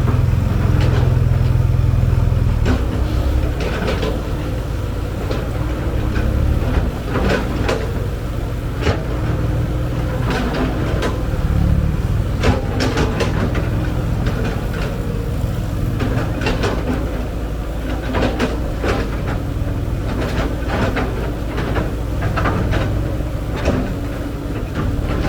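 Diesel engine of a Cat 312B excavator running at work, louder for the first couple of seconds, with frequent short sharp knocks and clanks throughout.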